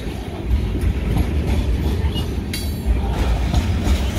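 Hopper cars of a gravel train rolling past, a steady rumble of wheels on the rails, with a brief high-pitched squeal about two and a half seconds in.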